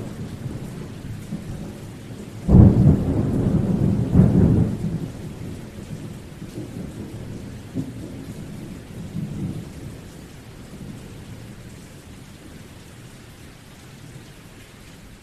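Steady rain in a thunderstorm. About two and a half seconds in, a loud thunderclap breaks, with a second crack about two seconds later. The thunder rumbles on for several seconds and dies away, and the rain fades near the end.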